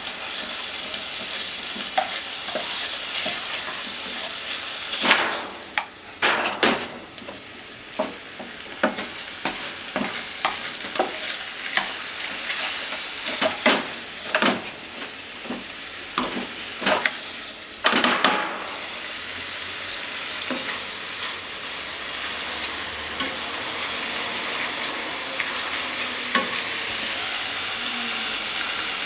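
Minced chicken sizzling in a frying pan while a spatula scrapes and knocks against the pan, stirring it. A little after halfway the stirring stops and only the steady sizzle goes on.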